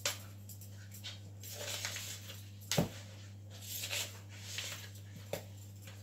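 A spatula stirring and scraping scone dough in a plastic mixing bowl: repeated short scrapes with a few sharp knocks against the bowl, the loudest about halfway. A steady low hum runs underneath.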